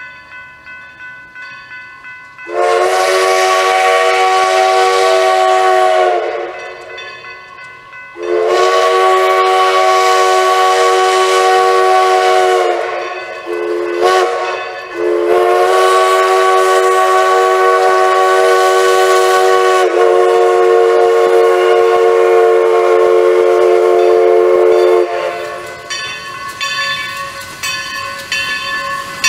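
Steam locomotive's whistle sounding the grade-crossing signal: two long blasts, a short one, then a long one held for about ten seconds, with a crossing bell ringing underneath and on after the last blast ends.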